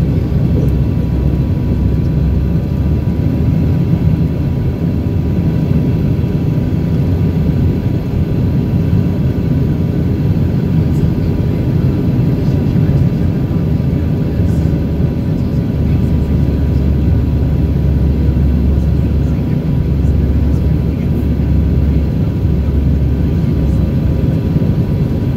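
Steady cabin noise inside a CRJ200 regional jet on its landing approach: a low roar of engines and airflow, with a few faint steady whining tones above it.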